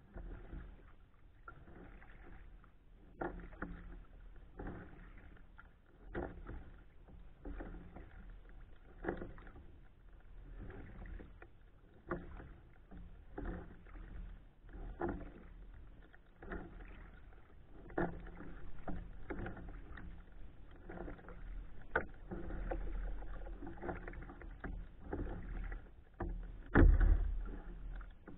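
Kayak paddle strokes on calm water: a splash about every second and a half as the blade dips and lifts. A louder low thump near the end.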